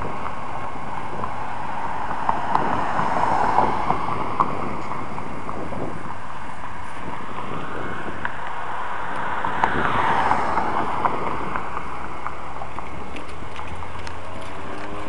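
Outdoor road traffic with wind on the microphone: two vehicles pass, each swelling and fading, about 3 seconds and 10 seconds in, with a few faint clicks; a low steady hum sets in near the end.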